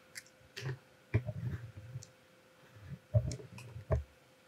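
Handling noise of a camera being repositioned: scattered clicks and soft low knocks, in clusters about a second in and again around three to four seconds in.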